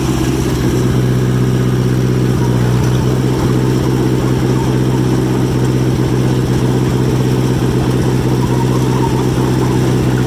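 John Deere 1010 crawler dozer's four-cylinder engine running steadily at constant speed while the machine pushes over a rotten tree.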